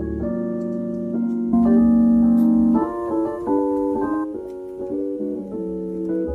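Nord Stage 3 stage keyboard played with a piano-type sound: full held chords, loudest a couple of seconds in, then a quick run of notes about three seconds in, settling into softer chords near the end.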